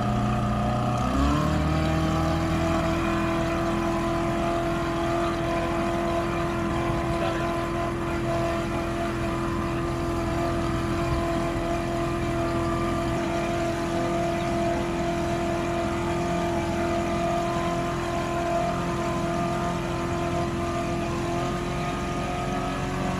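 A 115 horsepower outboard engine on a towing motorboat revs up about a second in, then runs steadily at high revs under load while towing a dinghy. Wind and rushing water from the wake are heard under it.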